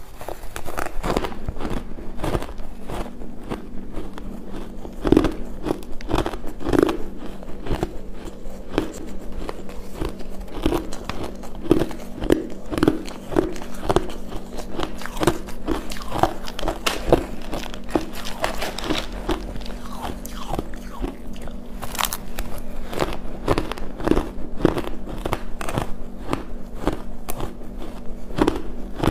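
Crunching and chewing of mouthfuls of crushed, coloured ice, a steady run of crisp cracks one or two times a second, over a faint low hum.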